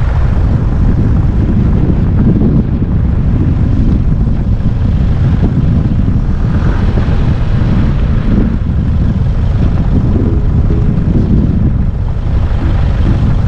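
A Nissan Patrol 4WD driving along: a loud, steady rumble of wind buffeting the microphone over tyre and engine noise.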